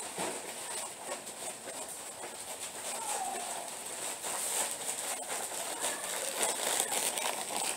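Scattered rustles, light knocks and footsteps of shopping being unloaded from a minivan's open tailgate and carried in, busiest from about four and a half seconds on as someone passes close by. A short falling bird call about three seconds in, over a steady high hiss.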